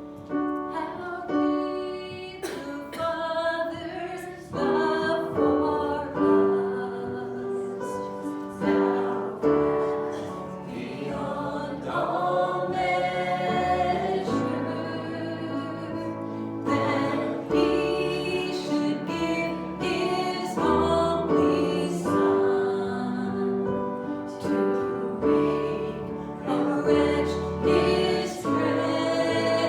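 Worship song in a church service: several voices singing together with instrumental accompaniment.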